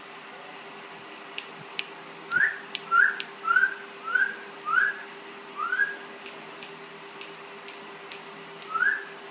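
A person's short rising whistles, six in quick succession about half a second apart and one more near the end, mixed with scattered sharp clicks, as if calling a puppy.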